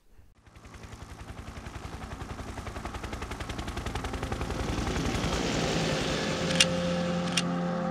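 Opening of an electronic song: a fast, evenly pulsing synth over held low tones, fading in from silence and slowly swelling, with two short clicks near the end.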